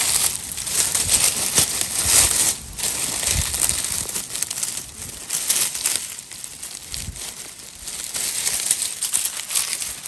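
Dry leaf litter and forest floor rustling and crackling as small porcini mushrooms are worked loose and pulled out by hand, with many crisp crackles.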